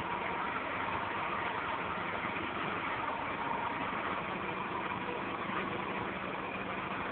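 Engine of a vault-setting trailer idling steadily while the vault is lowered.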